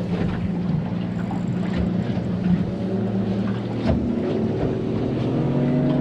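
A boat's outboard motor running steadily at low speed, its note shifting slightly about five seconds in.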